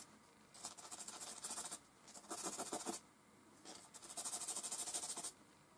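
Willow charcoal stick rubbed quickly back and forth on sandpaper to sharpen it to a point, shedding charcoal powder: a dry, gritty scratching in three bursts of fast strokes with short pauses between.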